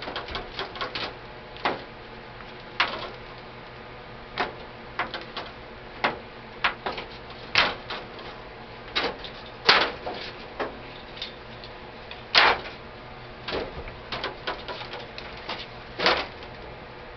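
Irregular clicks and clinks of metal hardware being handled while the sling comes off an AK-47 rifle, with a few louder knocks that ring briefly.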